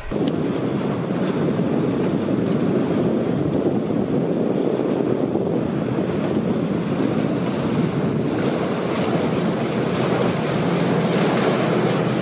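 Steady rush of wind on the microphone and water streaming past the hull of a sailing catamaran under way.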